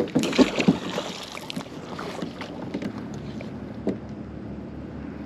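Several clattering knocks in the first second and a half, then steady wind noise on the microphone, with one more knock near the four-second mark.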